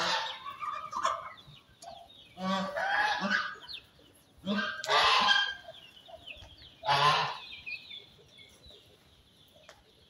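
Farmyard poultry calling: four loud, harsh calls about two seconds apart, with faint high chirping in between.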